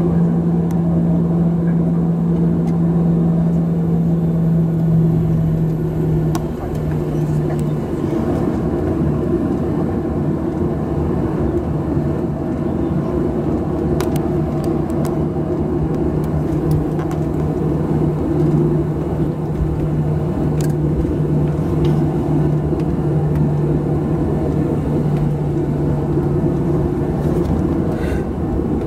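Steady cabin drone inside a taxiing Boeing 737-700, its CFM56-7B engines running at taxi power with a low hum whose pitch steps down slightly about six seconds in. A few faint clicks.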